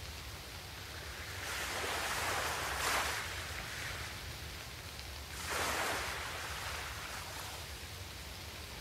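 A steady low hum and hiss, with two soft swells of rushing noise, like surf: one from about one and a half to three seconds in, another around six seconds in.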